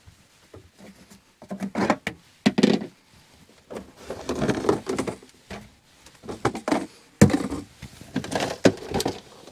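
Rummaging in a camper's wooden under-counter cabinet: the cabinet door opening, then knocks, thunks and handling noise in several short bursts.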